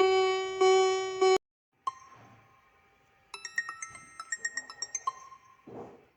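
Electronic siren tones: a pulsing pitched tone cuts off about a second and a half in, and after a short gap a rapid pattern of short electronic beeps stepping between several pitches begins. A brief low thud comes near the end.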